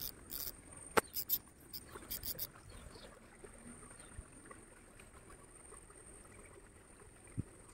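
Handling of a fly rod and reel: a sharp knock about a second in and several short rasping clicks in the first two and a half seconds, then the soft ripple of a shallow stream.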